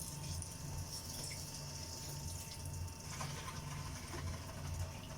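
Water being poured into a cooking pot to fill it up, a steady running-water sound.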